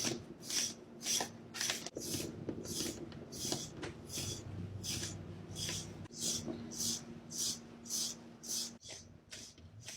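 Equigroomer de-shedding brush raking through a cat's thick coat in quick repeated scratchy strokes, nearly two a second, pulling out loose fur.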